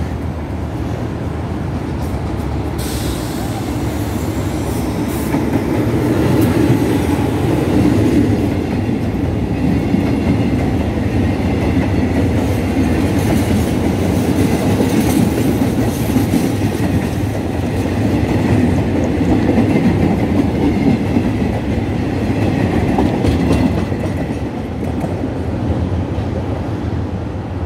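Container freight train passing at close range on the adjacent track: a continuous heavy rumble of wagons on the rails that swells in the middle and eases a little near the end.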